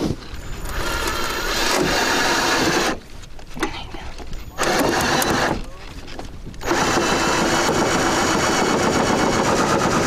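Cordless drill driving sheet metal screws through an aluminum bracket into the van's metal wall rib. The motor whirs in three runs: from just after the start to about three seconds, briefly around five seconds, and again from a little before seven seconds on.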